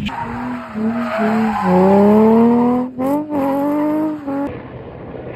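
Nissan 350Z's V6 engine revving hard under load, its pitch climbing, dropping briefly about three seconds in, then climbing again. It cuts off abruptly near the end, leaving a quieter outdoor hush.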